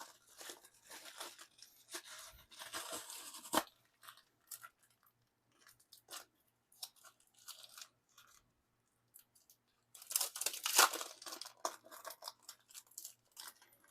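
Photo card packaging being handled and torn open: rustling and crinkling, with scattered small clicks in between, louder again about ten seconds in.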